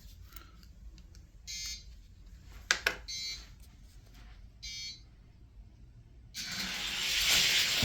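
An electronic race start sounds three short beeps about a second and a half apart. Then two die-cast stock cars run down the drag track, a rushing rattle of small wheels on the track that builds for about a second and a half.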